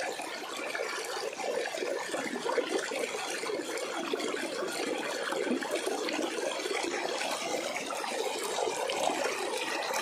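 Flowing water: a steady, even rushing of moving water.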